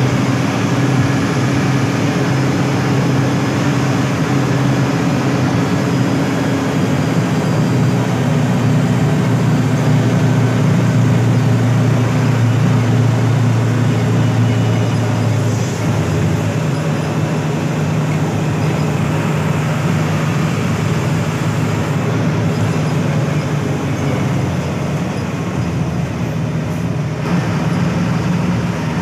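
Diesel engine of a front-engine Hino AK8 bus running steadily under way, with road noise. About halfway through, the engine note shifts to a higher steady pitch.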